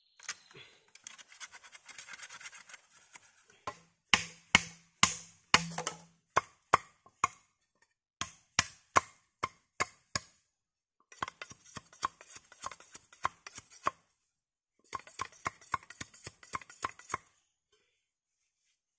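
A blade cutting notches into bamboo. A scraping stretch comes first, then sharp wooden knocks at about two or three a second for several seconds, then two quicker flurries of lighter cuts with a short pause between them.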